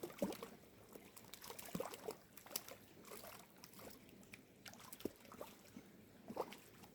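Water splashing and trickling in small, irregular splashes and drips.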